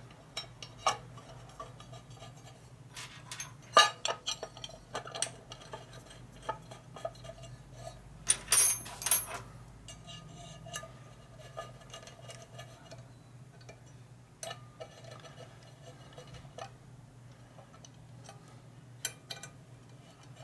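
Small metal parts clinking, tapping and scraping as they are handled and test-fitted by hand, with louder metal knocks about four seconds in and around nine seconds in. A steady low hum runs underneath.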